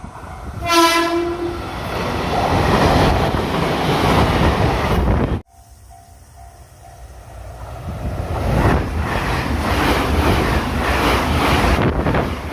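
A train horn gives one short blast, then a train runs past with a steady rumble. After a cut, a level-crossing warning bell rings faintly, and a second train approaches, growing louder, its wheels clattering over the rail joints.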